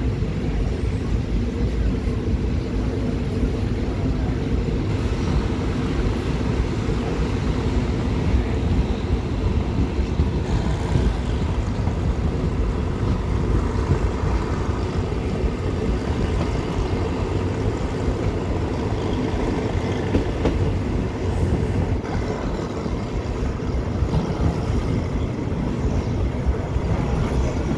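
Passenger train running along the track, heard from aboard at an open window or door: a steady, loud rumble of the carriage and wheels on the rails, unchanging throughout.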